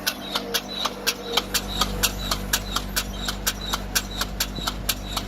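Seven-row mechanical garlic planter at work: a rapid, even clicking of about five clicks a second from its seed-cup mechanism over the steady hum of the engine driving it.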